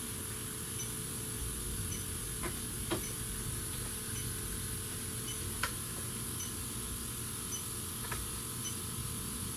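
Electronic refrigerant leak detector beeping at a slow, even rate, about once a second, over a steady high whine, with a few sharp clicks. The slow, steady rate is the detector's idle ticking, with no refrigerant being picked up.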